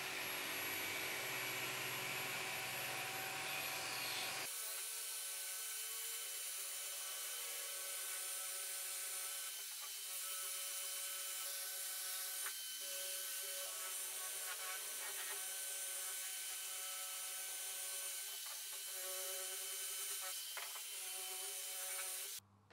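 Electric angle grinder with a wire cup brush running steadily against a charred wooden board, scrubbing off the burnt surface layer to expose the grain. It cuts off suddenly near the end.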